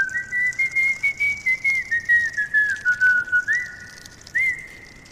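A person whistling a casual tune: a run of quick notes for about three seconds, then three short upward-swooping whistles.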